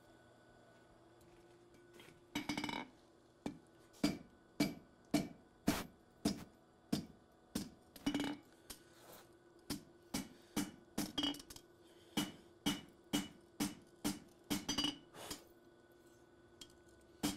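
Hand hammer striking a red-hot steel knife blade on an anvil: a steady run of ringing blows, about two a second, with a brief lull partway, and the anvil ringing on between strikes. The hammering starts about two seconds in and stops near the end.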